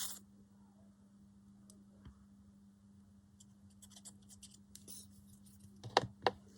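Scissors cutting paper: scattered light snips and ticks, then two sharper snips in quick succession near the end, over a faint steady hum.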